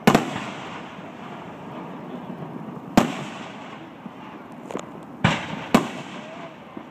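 Aerial firework shells bursting overhead: four loud bangs, one at the start, one about three seconds in and two close together near the end, with a couple of lighter pops just before the last pair. Each bang trails off in an echoing decay over a steady crackling hiss.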